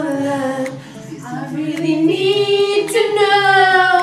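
Young women singing in loud, drawn-out notes, the last one held from about halfway through to the end.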